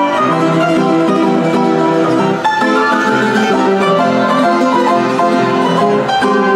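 Nickelodeon player piano playing a tune by itself: a busy run of many notes at once, at a steady loudness.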